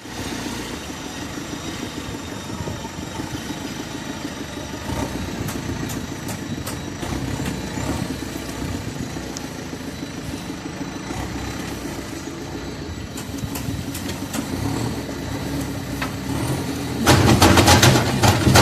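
Diesel engines of road-building construction machines running steadily, with scattered clicks and knocks. Near the end a much louder engine comes in, as a machine comes close or revs up.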